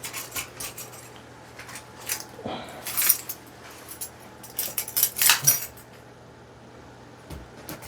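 Hands handling and opening a small product box. There are clusters of light clicks, taps and scrapes of cardboard and plastic packaging, the loudest about five seconds in, then a quieter pause near the end.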